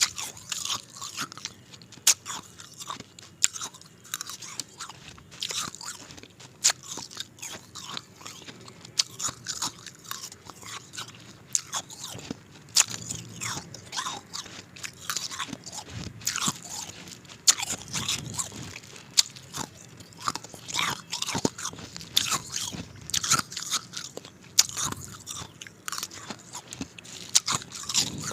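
Ice being bitten and crunched between the teeth, with many sharp cracks one after another.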